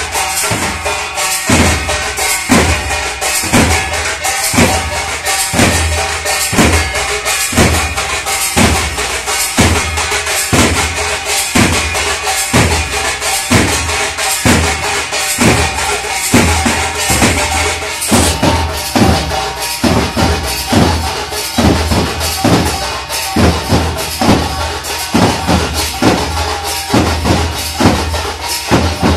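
Matua dongka kirtan: several large double-headed dongka drums beaten together in a steady, driving rhythm, with metal cymbals ringing over the beat.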